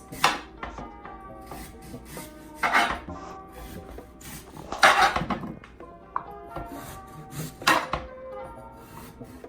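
A vegetable peeler scraping the skin off a sweet potato in short strokes, about every two to three seconds, over background music.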